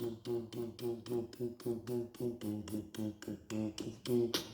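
Beatboxing: a man's mouth percussion with a hummed low melody, in a quick steady rhythm of about four to five beats a second.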